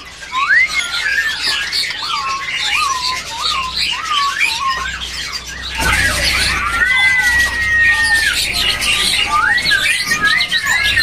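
Caged laughingthrush singing a run of loud whistled, hooked notes, with one long held whistle about two-thirds of the way through. Under it is the dense chirping of many other caged birds.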